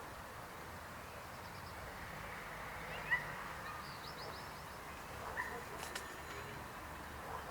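Frogs croaking in a steady chorus, with a few short bird chirps and trills over it, the loudest about three seconds in, and a sharp click near the end.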